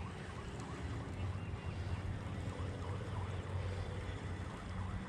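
Wind buffeting the microphone outdoors: a flickering low rumble with a faint hiss. Faint, repeated short chirps sit in the background.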